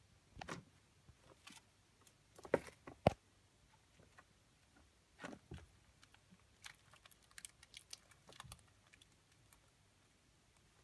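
Scattered light taps, scuffs and clicks from a Ragdoll kitten pouncing on and batting a wand toy on a woven rug, with two sharper knocks about two and a half and three seconds in.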